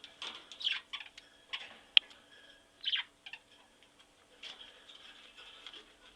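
Budgerigars chirping and chattering in short, broken bursts over a faint steady hum. A sharp click comes about two seconds in, with a few lighter ticks around it.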